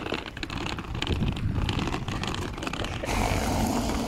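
Small plastic wheels of a toddler's toy trolley case and the wheels of a full-size suitcase rolling and rattling over rough pavement, a steady clattering rumble that grows louder about three seconds in.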